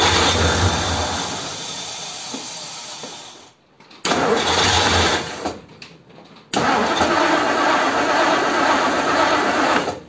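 Starter cranking a 1957 Ford Thunderbird's Y-block V8 in three bouts, the first and last about three seconds each with a short one between, without the engine catching; it will not start on the key alone.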